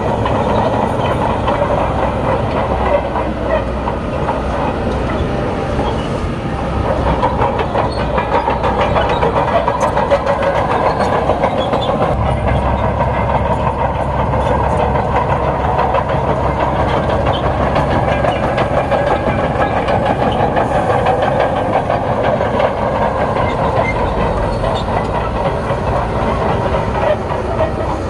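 Crawler bulldozer's diesel engine running steadily under load, with a continuous clatter of its steel tracks, as it pushes soil.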